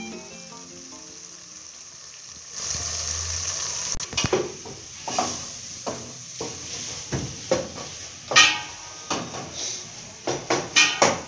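Wooden spoon stirring beef fry in an aluminium pot on the stove: the food sizzles, and the spoon scrapes and knocks against the pot again and again, with a quick run of knocks near the end. Background music fades out at the start.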